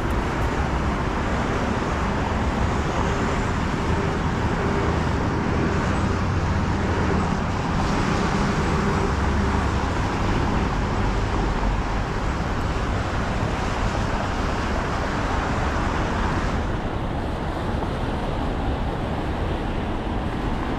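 Wind buffeting an action camera's microphone, with road noise from an electric scooter in motion on a snowy path. The noise is steady and eases slightly near the end.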